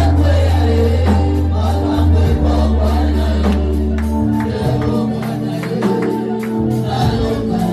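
Gospel worship song: singing over a band, with held bass notes that change every second or two and a steady percussive beat.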